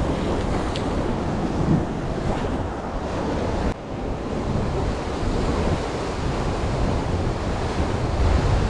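Ocean surf washing and breaking against a rocky sea cliff, with wind buffeting the microphone.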